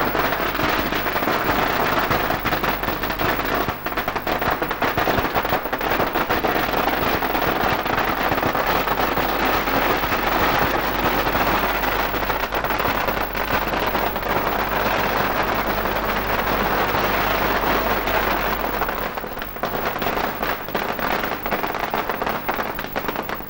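A long string of firecrackers going off in a rapid, continuous crackle of bangs, thinning to scattered pops about nineteen seconds in.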